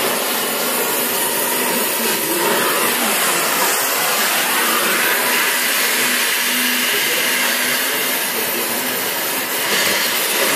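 Gas cutting torch burning with a steady hiss as it is held to the steel of a car's front inner fender to cut it away.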